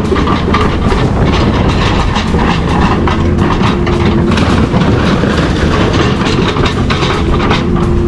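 Metal being crushed and clashing in heavy machinery: a loud, continuous clatter of many rapid metal knocks and grinding over a steady low machine hum.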